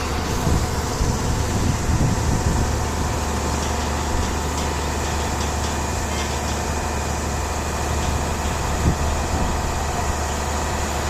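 Heavy diesel engine running steadily at idle with a deep drone, with a few low knocks in the first couple of seconds and a single sharper knock near the end.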